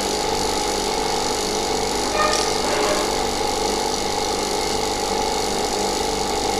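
Laboratory vacuum pump running with a steady hum while it holds a distillation apparatus under reduced pressure. A brief, sharper sound cuts in about two seconds in.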